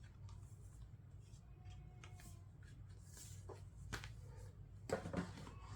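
Faint handling of boxed items: light rustles and small clicks, with a couple of sharper knocks near the end, over a low steady hum.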